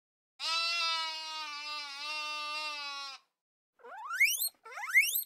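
A sheep bleats once, a long steady call lasting nearly three seconds. A guinea pig then gives two quick rising whistles, the wheeking squeal.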